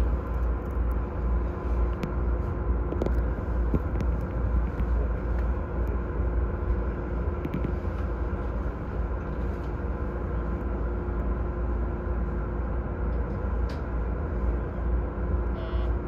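Steady low rumble and hum inside a stationary E231-series 1000 commuter train, its onboard equipment running while the train stands halted after an emergency stop. A few faint ticks are scattered through it.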